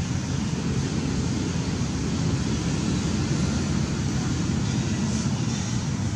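Steady low rumbling background noise, even throughout, with no monkey calls or distinct knocks.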